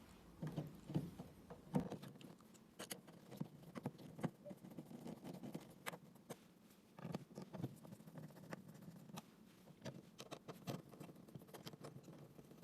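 Faint, scattered clicks and rustles of hands handling a tennis ball machine's control panel and its wiring as the panel is pushed back into the housing.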